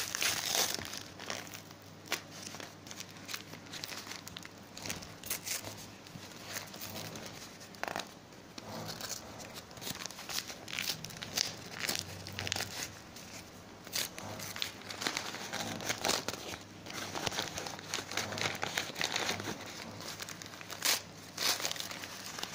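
Plastic packaging crinkling and rustling in uneven handfuls as hands unwrap it.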